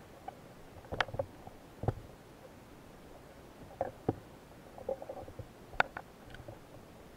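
Scattered sharp clicks and knocks heard underwater over a faint background hiss: a few single ones, the sharpest about a second in and near six seconds, and a small flurry around four to five seconds.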